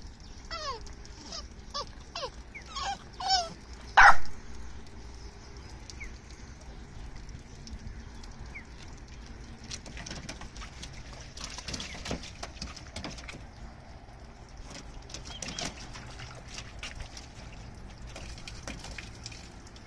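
Bulldog puppy whining in a run of short, falling yelps, then one loud bark about four seconds in. After it, scattered scuffling and splashing as its paws move over the wet truck bed liner.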